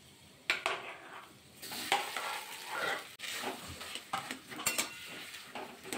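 Mashed boiled potato scraped out of a bowl with a spatula into a steel kadai of hot mustard oil with fried green chillies. A light sizzle, broken by irregular scrapes and knocks of the spatula against the bowl and the pan.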